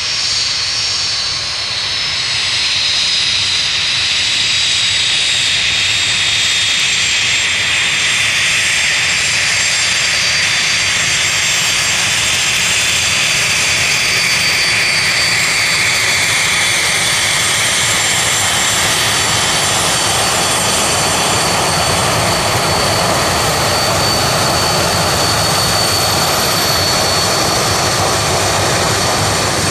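Jet airliner's engines running loud and steady, a dense roar with a high whine that slowly drops in pitch over the first half.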